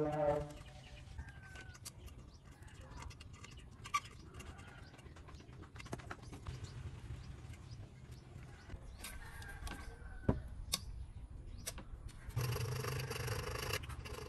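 Low background hum with a few small sharp clicks from soldering work, and brief faint bird calls. A louder call lasts about a second and a half near the end.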